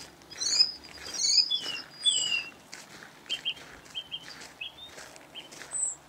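Small forest birds chirping: a run of quick rising and falling chirps in the first two seconds or so, then short scattered notes and one falling note near the end. Footsteps on a gravel road crunch faintly underneath.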